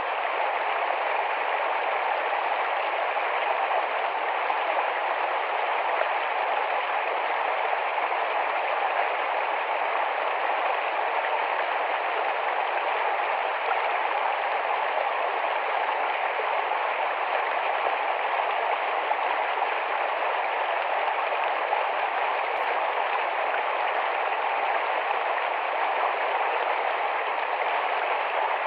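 Small, fast-flowing forest stream babbling steadily: an even, unbroken wash of running water.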